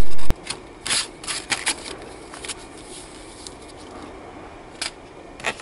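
A loud steady background noise cuts off suddenly just after the start. Then comes a quiet stretch with a few short rustles and clicks of paper and plastic packaging being handled, mostly in the first couple of seconds and once more near the end.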